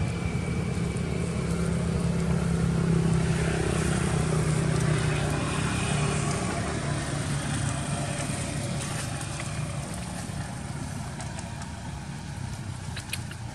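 Motorbike engine passing by, loudest a few seconds in and fading away toward the end.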